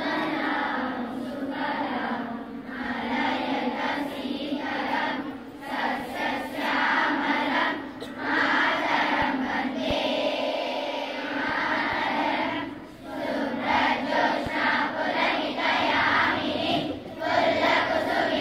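A large group of children singing together in unison, in phrases with short breaks between them.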